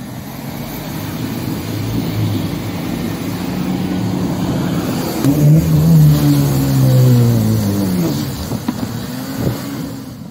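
4x4 SUV engine revving under load as the vehicle climbs a snowy slope, its tyres spinning and throwing snow. The revs climb about five seconds in, hold for a few seconds, then fall away.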